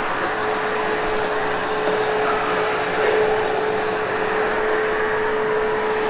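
Vacuum cleaner running steadily over carpet, a constant motor hum with a steady whine, pre-vacuuming soiled carpet.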